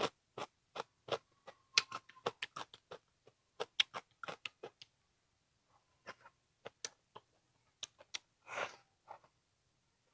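A person chewing a mouthful of raw cucumber close to the microphone: quick crisp crunches and wet mouth smacks, dense for the first five seconds, then thinning to scattered smacks as she goes on eating. There is one longer, louder noisy mouth sound about eight and a half seconds in.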